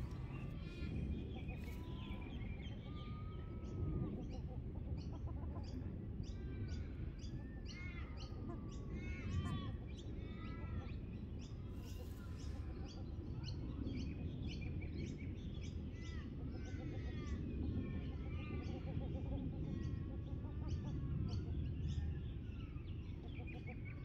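Birds calling among a grazing flock of Australian wood ducks: many short calls that rise and fall in arches, lots of quick high chirps, over a steady low rumble.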